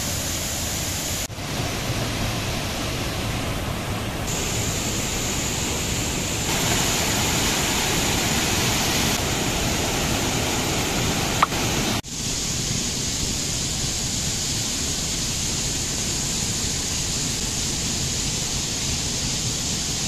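Waterfall and rocky stream rushing over boulders: a steady wash of water noise whose tone changes abruptly a few times between shots. A single sharp click just before the middle.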